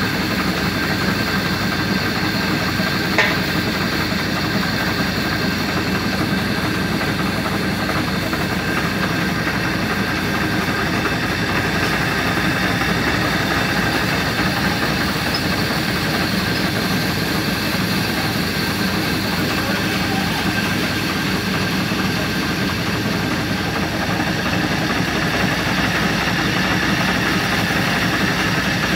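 A steady mechanical drone, unchanging throughout, with one short click about three seconds in.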